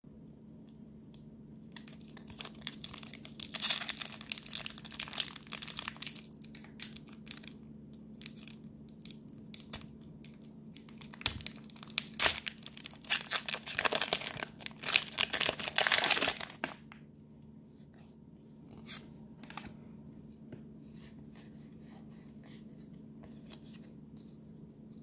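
Foil wrapper of a Pokémon TCG Crown Zenith booster pack crinkling in the hands, then torn open with a louder stretch of tearing and crinkling about halfway through. After that, only a few faint ticks as the cards are handled.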